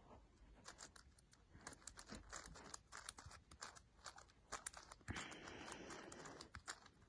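5x5 Rubik's cube being turned two layers at a time: quick, faint plastic clicks of the layers snapping into place, with a longer rustling stretch about five seconds in.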